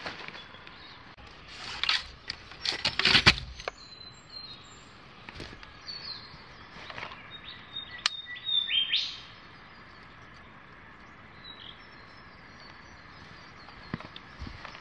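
Small birds chirping in short repeated notes, over rustling and knocking of a backpack and camping gear being handled, loudest about two to three seconds in.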